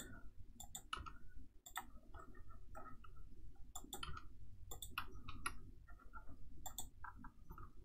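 Computer mouse buttons and keyboard keys clicking faintly at irregular intervals, a dozen or so clicks, over a low steady hum.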